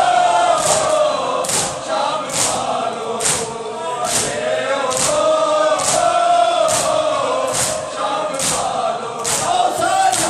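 A hall full of men chanting a nauha refrain in unison, with sharp slaps of hands striking bare chests in time, just over once a second: Shia matam, ritual chest-beating in mourning.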